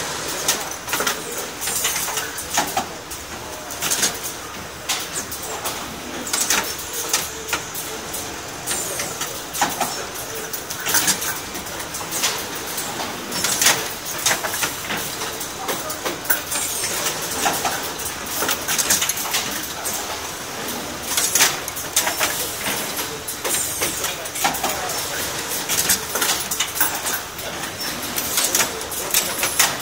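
Automatic garment bagging machine running, with frequent irregular clicks and clacks over a steady mechanical noise as hangers move through it and are sleeved in plastic film.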